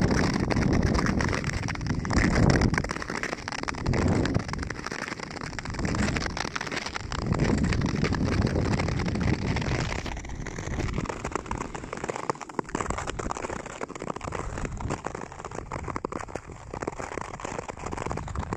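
Nordic skate blades scraping and hissing over thin snow on lake ice as the skater glides along, a continuous gritty noise with a low rumble that swells and fades every couple of seconds.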